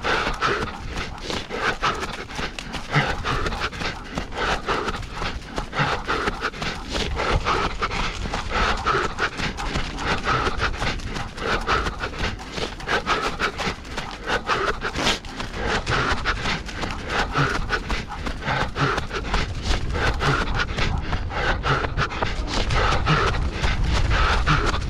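Hard, rhythmic panting with quick running footfalls: a runner and his harnessed dog running at race pace in canicross.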